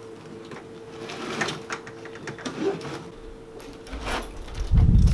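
Light knocks and rustles of a solar panel and its cables being handled and tilted, over a faint steady hum. Near the end a loud low rumble builds up.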